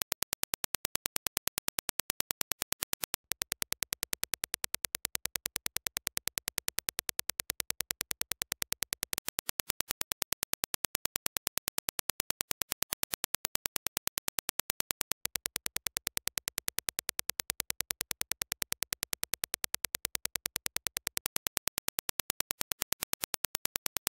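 Reference Dirac impulse test signal: a rapid, evenly spaced train of sharp digital clicks, used to judge a headphone's transient speed.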